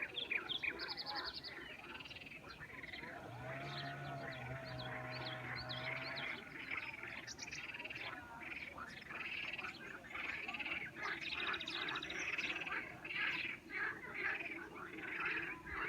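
Birds chirping: many short, quickly repeated chirps overlapping. A long, low wavering call runs for about three seconds early on.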